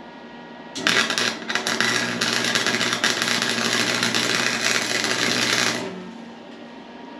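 Harbor Freight welder's arc crackling steadily while laying a tack weld. It starts about a second in and cuts off sharply after about five seconds.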